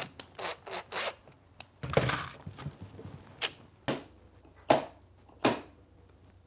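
Handling of a small wood-and-PVC-pipe mechanism on a workbench: scattered sharp clicks and knocks, with a brief scrape about two seconds in and two louder knocks near the end.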